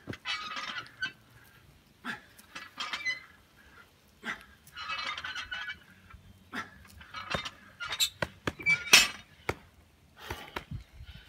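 Barbell thrusters: a man breathes out hard every couple of seconds with each rep while the loaded bar clinks. About nine seconds in, the bar is dropped to the ground with a loud knock of its plates.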